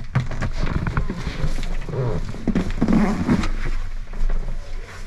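A man clambering up and out through the hatch of a cramped two-person submarine: irregular knocks, bumps and scrapes of his body and shoes against the hull and fittings, with low grunts of effort in the middle.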